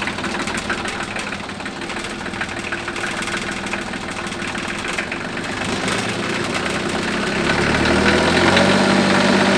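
Freshly installed Northern Lights 9 kW three-cylinder marine diesel generator running steadily just after starting, with a fast, even diesel clatter. It grows a little louder and deeper near the end.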